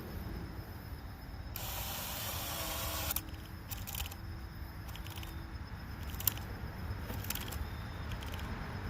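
DeWalt DCD996 cordless drill's clutch on its lowest setting (1) slipping and ratcheting for about a second and a half, not strong enough to drive the fastener. Several sharp clicks follow.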